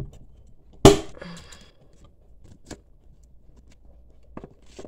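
Metal rings of a binder snapping open with one sharp, loud click about a second in, followed by a brief metallic rattle, then a few faint clicks and plastic rustles as an envelope is handled.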